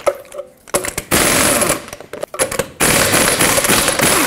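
Half-inch impact gun hammering lug nuts loose on a truck wheel, in two bursts: a short one about a second in and a longer one starting about three seconds in.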